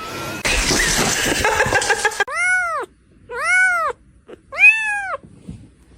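A cat meowing three times, each meow rising and then falling in pitch, the last one loudest. Before the meows there is a stretch of loud noise.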